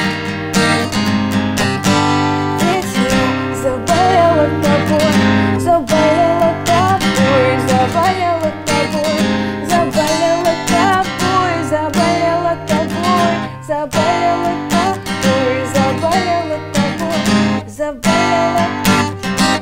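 Strummed acoustic guitar with a woman's voice singing a wavering melody over it from about three seconds in; the music cuts off suddenly at the end.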